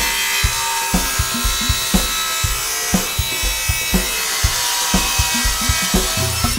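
Background music with a steady beat, over a table saw cutting through a walnut and maple hardwood board.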